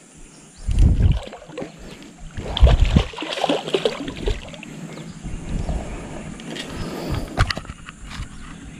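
Water splashing and sloshing, with two heavy low thumps about one and three seconds in.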